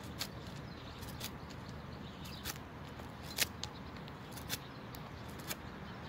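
Plain blade of a Splitman GHK6 multitool whittling a small stick: about ten short, faint shaving scrapes at uneven intervals.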